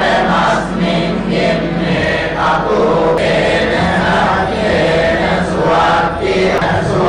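Sri Lankan Buddhist monks chanting a blessing together, many voices in unison in a steady, unbroken chant.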